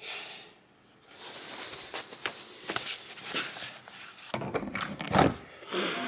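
Camera handling noise: rubbing and rustling against clothing with a run of clicks and knocks, and a heavy thump about five seconds in.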